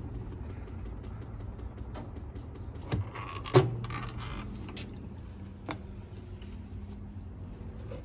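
A few sharp clicks and knocks from the plastic lid of a portable top-loading washing machine as it is opened and handled, the loudest about three and a half seconds in, over a steady low hum.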